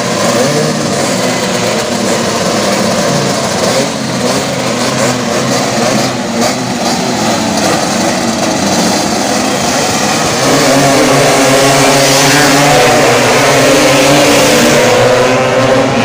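Tuned two-stroke Vespa racing scooter engine running and revving, its pitch rising and falling, louder from about ten seconds in.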